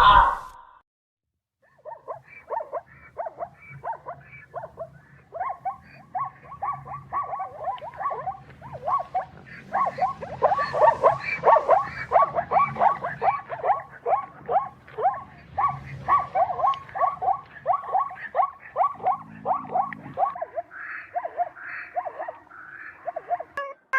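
An animal giving a long, fast series of short calls, about four a second, over a low rumble; the series stops about three seconds before the end.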